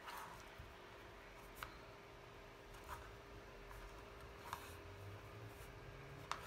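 Faint rubbing and a few soft clicks as a plastic cel stick is rolled over gum paste on a cutting mat to thin it out, over quiet room tone with a faint steady hum.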